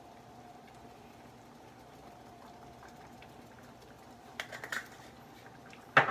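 Spice bottle shaken over a pan of meat sauce, giving a few quick light rattles about four and a half seconds in, then a sharp knock near the end as a bottle is handled on the counter. A faint steady hum sits underneath.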